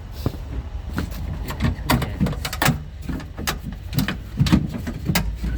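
Irregular clicks, knocks and rattles of a door lock actuator and latch assembly being worked out of the inside of a 2008 Honda CR-V front door, its linkage rod catching as it is maneuvered.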